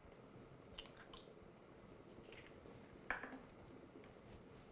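Near silence with a few faint clicks of a kitchen knife being handled, the clearest about three seconds in.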